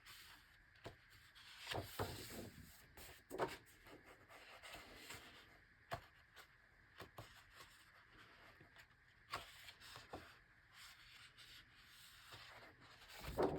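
Faint handling of an oversized hardcover book: large pages rubbing and sliding as they are turned, with scattered light taps and clicks and a few louder rustles, about two seconds in, a second later, and near the end.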